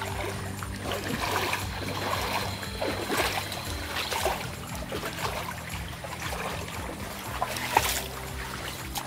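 Shallow forest stream trickling and splashing, mixed with background music that holds steady low notes.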